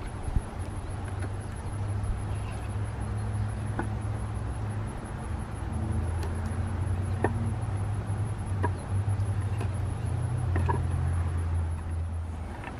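A low steady hum that shifts slightly in pitch, with four or five sharp knocks of wooden pieces as logs of a log chair are handled.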